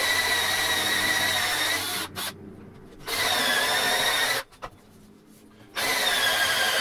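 Cordless drill spinning a hole saw into a wooden cabinet face: a steady motor whine that starts and stops in three runs with two short pauses.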